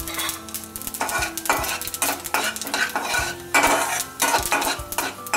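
A slotted metal spatula stirs and scrapes in a metal kadai while oil sizzles around mustard seeds, urad dal and dried red chillies, with many sharp crackles and clicks from the frying seeds.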